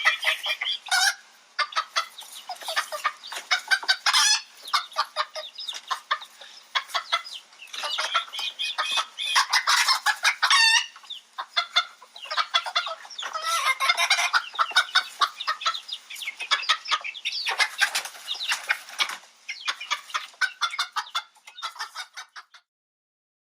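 A flock of chickens clucking and chattering continuously, many short overlapping calls, stopping suddenly about a second before the end.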